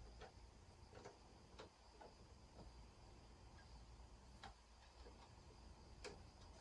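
Near silence: low room tone with about five faint, scattered sharp clicks.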